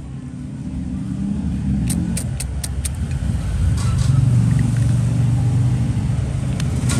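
Low rumble of a passing motor vehicle engine, growing louder toward the middle and holding there. About two seconds in, a quick run of five sharp clicks.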